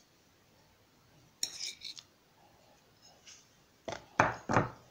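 Cutlery scraping and tapping against a bowl and a small tin can as crumbled ricotta is spooned out: a short scrape about a second and a half in, then three sharp taps in quick succession near the end.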